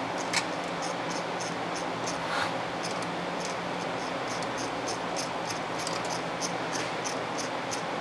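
Hands working the gears of an opened tape drive's loader mechanism: a sharp click about half a second in and a brief scrape a couple of seconds later. Under it are a steady hum and hiss, and a regular high-pitched chirp about three times a second.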